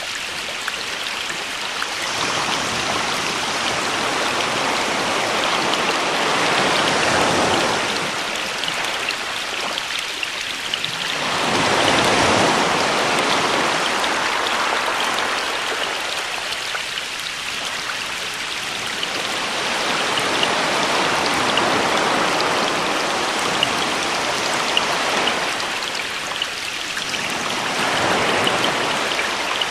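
Sea waves surging in and washing back every few seconds, over a steady patter of rain.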